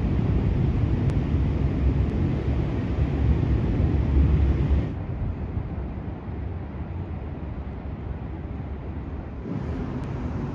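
Outdoor city ambience: a steady low rumble of distant traffic and wind. It is louder in the first half, then drops abruptly about five seconds in and shifts again near the end.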